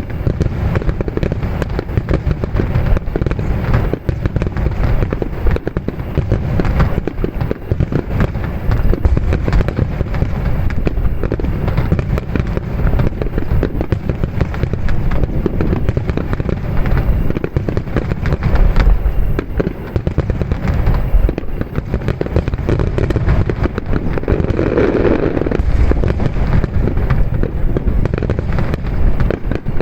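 Aerial fireworks going off in a dense, continuous barrage: deep booms and sharp cracks overlapping with no pause, typical of a fireworks finale.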